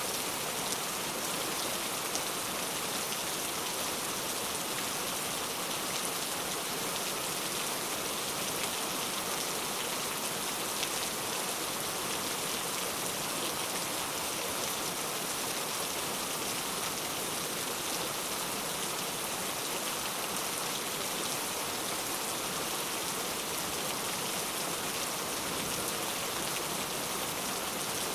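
Heavy rain falling steadily, a dense even hiss of drops hitting surfaces with fine pattering throughout.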